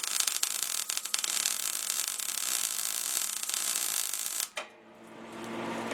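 MIG welder arc crackling and hissing, running on .023 wire with argon-CO2 shielding gas. It cuts off abruptly about four and a half seconds in, leaving a low steady hum.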